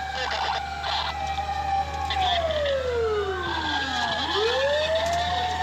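Fire engine siren wailing: it holds a high note, slides down over about two seconds, then rises again near the end, over a steady low rumble.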